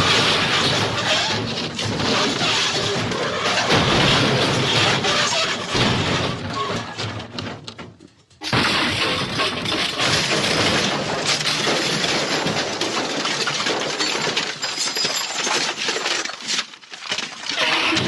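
MGM elephant smash stock crash sound effect: a long, dense crash of shattering and breaking. It dies away about eight seconds in and starts again abruptly half a second later.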